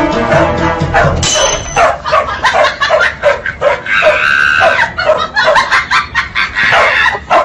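Dogs barking and yipping in quick, repeated short calls, with one longer, drawn-out call about four seconds in. Background music cuts off about a second in.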